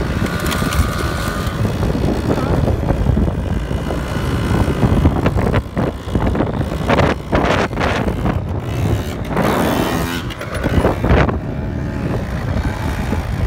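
Quad bikes (ATVs) running and revving on sand, with heavy wind noise on the microphone; the sound surges several times in the second half.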